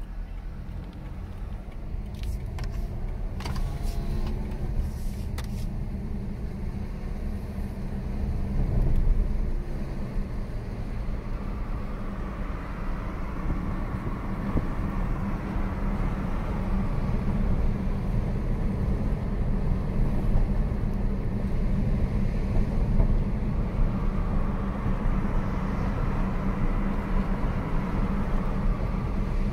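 Road noise inside a moving car: a steady low rumble of engine and tyres, with a rushing hiss that grows louder from about a third of the way in. There are a few light clicks a couple of seconds in.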